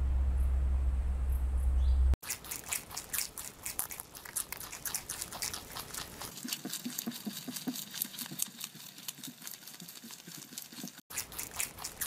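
A low steady hum stops abruptly about two seconds in. It gives way to a rapid, irregular run of small crisp clicks and crunches: a wild rabbit chewing grass.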